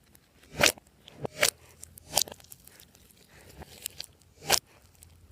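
Glossy slime being squeezed and kneaded by hand, giving a handful of separate wet pops and crackles as air pockets burst, with short quiet gaps between them.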